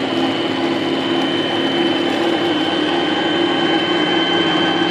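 Singer 8280 sewing machine's electric motor running steadily at speed as it winds thread onto a bobbin, with a constant hum and a thin high whine.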